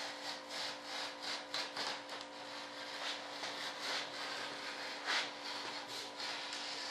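Short scratchy strokes of a hand tool working cardboard, several a second at first and sparser later, over a faint steady hum.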